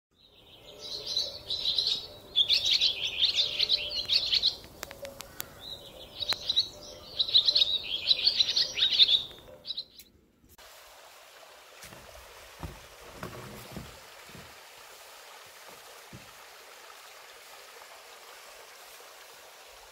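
A songbird singing two long runs of rapid, high chirps. It cuts off suddenly about halfway through, leaving a faint, steady rush of flowing water with a few soft knocks.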